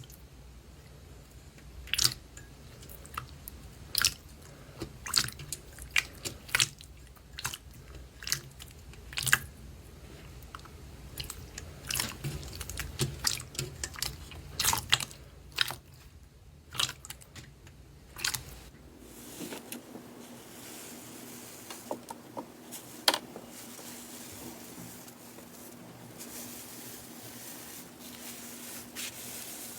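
Slime being pressed and worked by hand, giving a run of sharp crackling pops and clicks that thin out after about 19 seconds.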